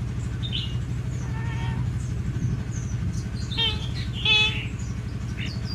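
Hill myna giving several short, pitched whistled calls and high chirps, the loudest about four seconds in, over a steady low hum.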